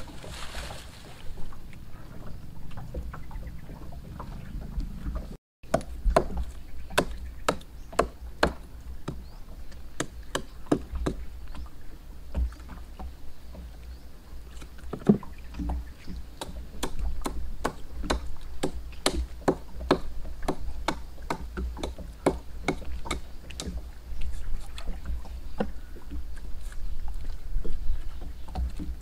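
Small axe chopping into the wood of a tree trunk: a long run of sharp, irregular strikes, about two a second.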